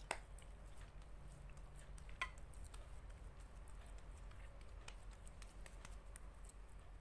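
Hands pinching soft yeast dough closed around a crumbled cheese filling: faint sticky squishes and small ticks, with two sharper clicks, one at the start and one about two seconds in.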